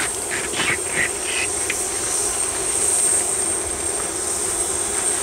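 Antonov An-74's two turbofan engines running steadily on the ground, a constant high-pitched jet whine over a low hum.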